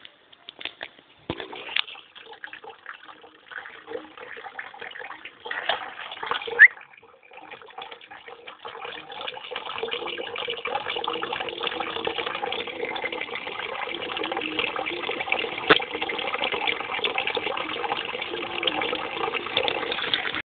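Water running or splashing, a steady rush that sets in about halfway through and holds to the end. Before it come scattered knocks and rustles, with one sudden loud knock about six seconds in. All of it is heard through a basic phone microphone with a narrow, tinny range.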